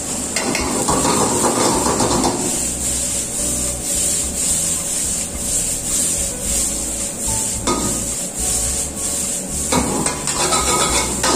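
A metal ladle scraping and knocking against a wok as shredded vegetables are stir-fried and tossed over a gas flame, in irregular bursts that are heaviest in the first couple of seconds and again near the end, over a steady hiss.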